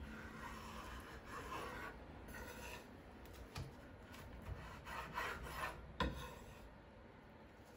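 Chef's knife cutting through a thin egg omelette and scraping across a wooden cutting board in several short strokes, with a single knock about six seconds in.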